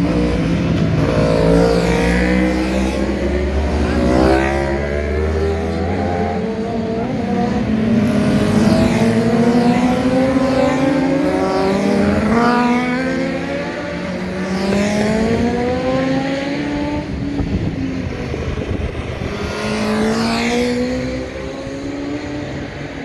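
Racing motorcycles from a classic class passing one after another, their engines revving hard as they accelerate out of a bend. The pitch climbs and drops back at each gear change, and it falls away as each bike goes by.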